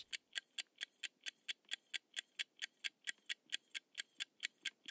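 Quiz countdown-timer sound effect: evenly spaced clock ticks, about four a second.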